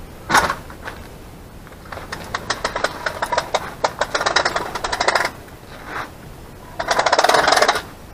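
Runs of rapid mechanical clicking and rattling: a sharp click early, a long run of quick clicks from about two to five seconds in, and a denser, louder burst near the end.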